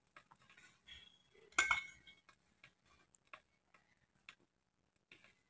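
A metal spoon clinking against a small steel bowl: one loud, briefly ringing clink about one and a half seconds in, among scattered light ticks and clicks.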